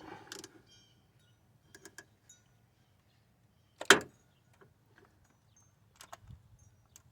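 Scattered light metal clicks and clinks of a socket wrench, with one sharp, louder click about four seconds in, as a stuck spark plug is worked out of an aluminum cylinder head.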